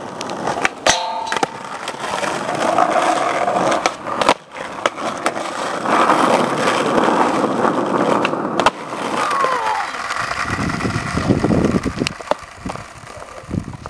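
Skateboard wheels rolling over rough concrete, with several sharp clacks of the board snapping and landing.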